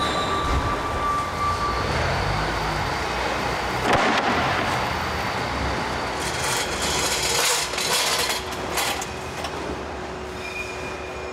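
Warehouse work noise: a continuous mechanical rumble with several rasping, scraping bursts partway through, from boxes being taped and loaded pallets being moved.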